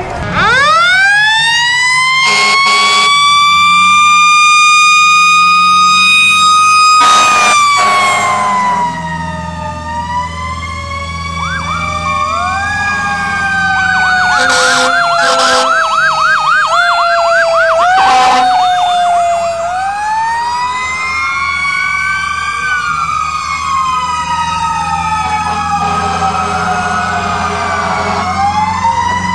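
Fire truck sirens: a mechanical siren winds up fast just after the start, holds a high wail for several seconds, then coasts slowly down, while a second siren wails and switches to a fast yelp in the middle. Several short horn blasts cut through over a steady truck engine hum.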